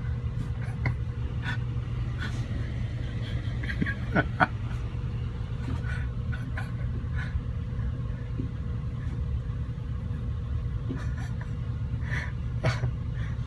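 A steady low mechanical hum, with scattered light clicks and knocks, the loudest about four seconds in.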